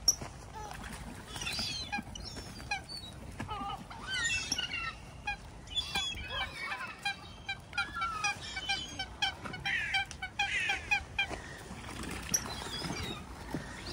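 A flock of swans and ducks calling over one another as they are fed: many short calls, with a quick run of evenly spaced calls in the middle that thins out near the end.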